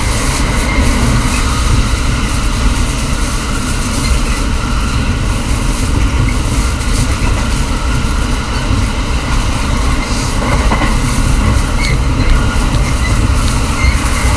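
Running noise of a Takasaki Line commuter train heard from inside a driving trailer car (Kuha): a steady rumble of wheels on rail as the train runs between stations.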